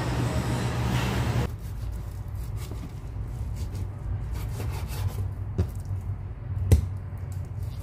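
Serrated knife sawing through a raw beef steak on a wooden cutting board, with scattered sharp knocks of the blade on the board, the loudest a little before the end. It opens with a dense rushing noise that cuts off about a second and a half in, and a low hum runs beneath.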